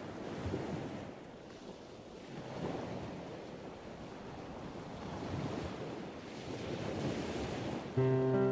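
Sea surf washing onto a sandy beach, swelling and easing, with wind buffeting the phone's microphone. Music comes in just before the end.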